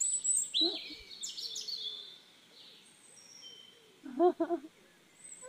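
Small birds chirping and twittering, with quick high chirps and falling whistles, busiest in the first two seconds. About four seconds in there is a short wavering call in three quick pulses, the loudest sound here.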